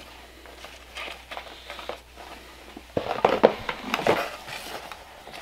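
Plastic bag rustling and crinkling as it is pulled out of a cardboard box: faint crackles at first, then louder rustling from about three seconds in.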